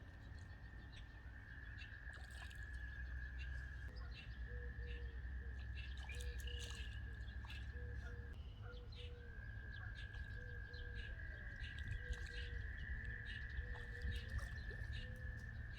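Faint pond-side birdsong: scattered high bird chirps and calls over a steady high-pitched drone, with a soft low note repeating about once a second from a few seconds in.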